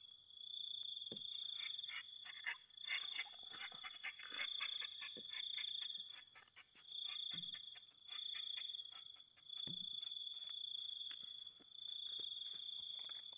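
Night insects trilling at a high, steady pitch in stretches of about a second with short breaks, over a rapid clicking chorus.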